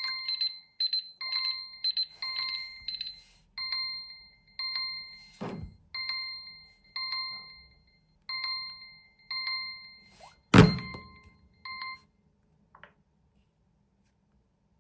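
Smartphone alarm ringing: a short electronic chime repeating about once a second, with a brief falling swoosh midway and one loud sharp knock near the end. The alarm stops about twelve seconds in.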